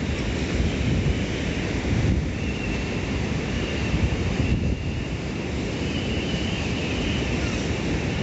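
Strong wind buffeting the microphone over the wash of a rough sea, a steady rumbling noise.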